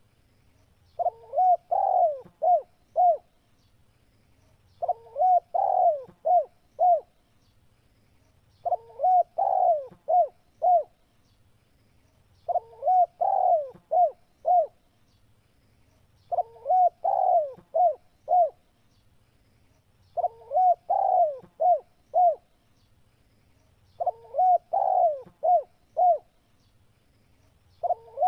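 Spotted dove (tekukur) cooing: a phrase of about five coos, repeated about every four seconds with short pauses between.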